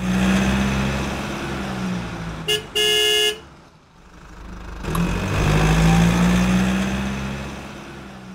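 Car sound effect: an engine running and fading, a short horn toot followed at once by a longer honk, then the engine swelling up again and fading away.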